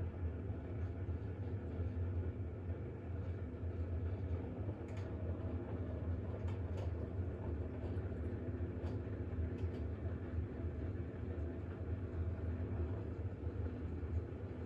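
Bosch WAX32GH1 washing machine at the start of its intermediate spin after the drain, with a steady low hum that does not yet build in speed. A few faint light clicks come from inside about halfway through.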